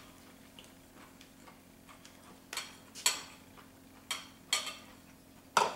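Metal fork clinking against a ceramic serving bowl while picking up Brussels sprouts: about five sharp, short clinks at uneven intervals in the second half.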